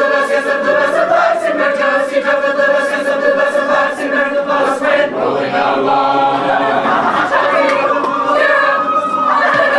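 A group of voices singing a song together loudly, held sung notes with some shouting voices mixed in toward the end.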